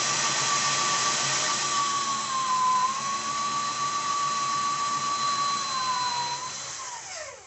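Cordless drill running with a small pilot bit, boring through drywall into a wooden wall stud. Its steady motor whine sags a little under load about three seconds in, then falls in pitch and stops near the end.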